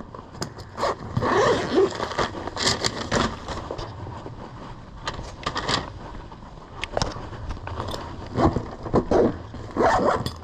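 Irregular rustling, scraping and clicking of clothing and gear being handled close to a body-worn camera microphone.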